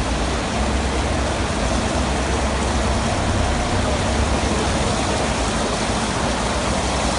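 Steady rush of heavy rain and running water, with a low rumble.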